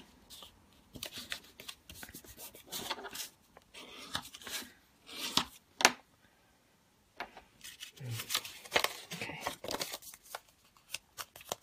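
Paper being folded and creased by hand: crisp rustles and crackles with small sharp clicks, stopping for about a second in the middle.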